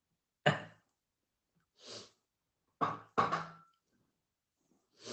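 A man chuckling to himself: about five short bursts of breathy laughter, a second or so apart.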